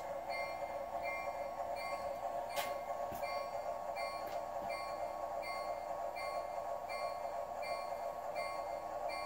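Sound unit of a Flyer Chief Baldwin diesel switcher: a steady diesel engine sound with its bell ringing about twice a second. Two sharp clicks about three seconds in.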